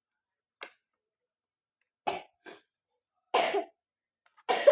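A child coughing: one faint cough just after half a second, then a string of louder, separate coughs from about two seconds in. The child has a cough and cold.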